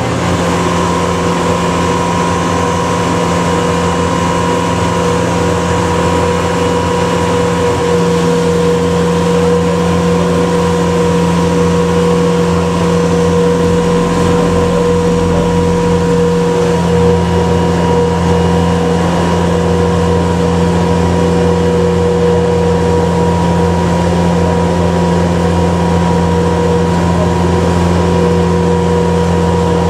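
Water taxi's engine running at a steady cruise, a constant drone over the wash of its churning wake.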